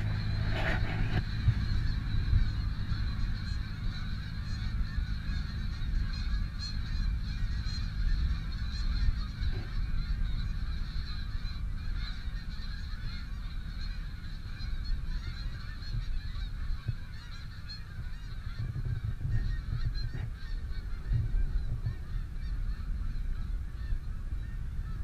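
A large flock of migrating geese honking overhead, many calls overlapping into a continuous clamour, with a low rumble underneath.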